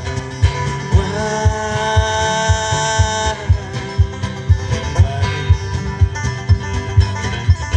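Folk-country song in an instrumental stretch between verses: a steady kick-drum beat about twice a second under held melody notes and strummed or plucked strings.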